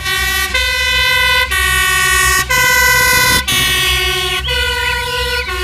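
Dutch fire engine's two-tone siren sounding, switching between a low and a high tone about once a second.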